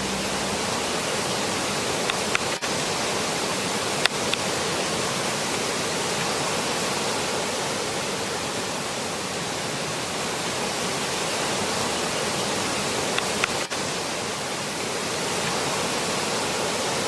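Steady rush of flowing water from a mountain stream, with a few faint clicks about two, four and thirteen seconds in.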